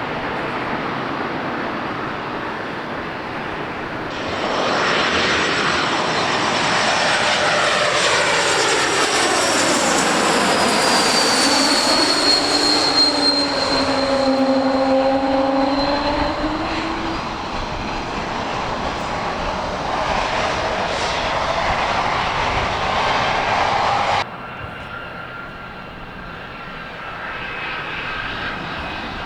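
Jet airliner flying past: the engine noise swells about four seconds in, with a high whine that slides down in pitch as the plane goes by. The sound drops off abruptly about 24 seconds in, leaving a fainter jet noise.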